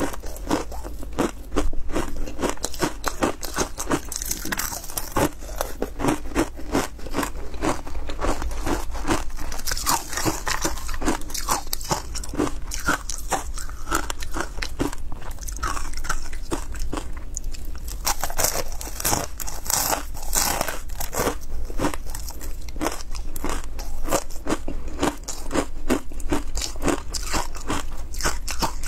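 Ice chunks coated in matcha powder being bitten and chewed close to the microphone: a dense, unbroken run of sharp, brittle crunches.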